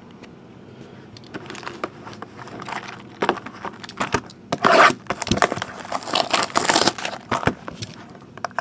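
Hands opening a cardboard trading-card box (2014/15 SPX Basketball): a string of irregular crinkling, scraping and tearing noises from the packaging, loudest a little past the middle and again near the end.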